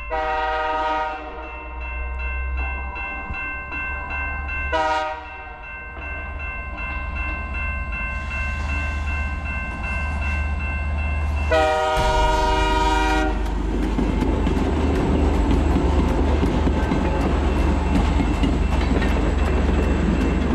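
Freight train horn sounding repeated blasts for a level crossing: loud blasts at the start, about five seconds in and about twelve seconds in, under a steady locomotive rumble and the ringing crossing bell. The train then passes close by, its wheels clattering over the rails and growing louder.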